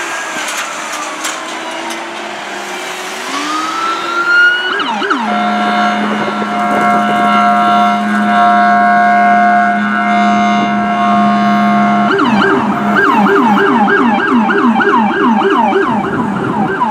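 Emergency vehicle sirens in traffic. A wail winds down and then climbs again, followed by a long steady horn blast of about seven seconds. About twelve seconds in it switches to a fast yelp, roughly three sweeps a second.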